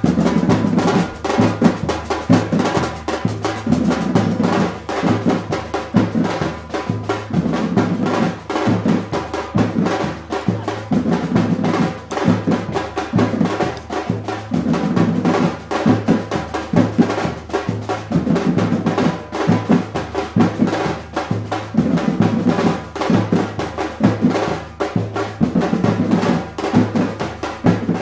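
Samba-reggae percussion band drumming a steady, loud groove: deep bass drums repeating a pattern under dense snare strokes.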